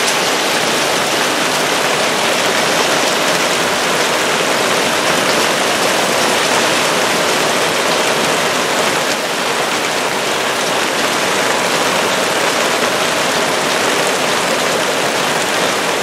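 Heavy downpour of hail and rain pelting the ground in a dense, steady hiss.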